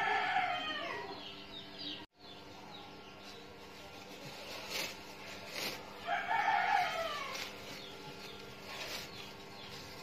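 Rooster crowing twice: one call at the start and another about six seconds later, each falling away over a second or so.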